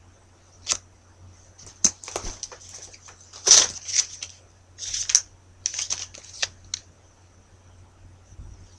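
Handling noise close to the microphone: a run of short, irregular scratchy rustles and clicks, the loudest about three and a half seconds in, over a low steady electrical hum.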